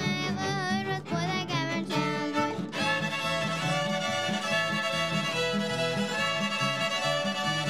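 Fiddles playing a tune over a steady rhythm accompaniment. About three seconds in, the music changes to several fiddles holding long notes together.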